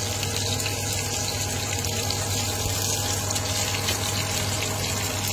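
Pieces of red snapper frying in a pan of hot oil: a steady sizzle with fine crackling.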